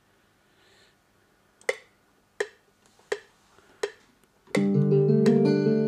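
FL Studio metronome counting in: four short clicks at about 85 beats a minute. On the next beat, chords of a guitar patch from the FLEX plugin start, played live on a MIDI keyboard, with the metronome still ticking under them.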